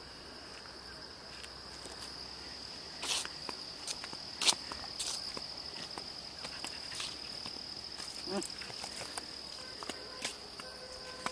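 Insects trilling steadily on one high pitch, with a few scattered clicks and scuffs of footsteps on grass and gravel.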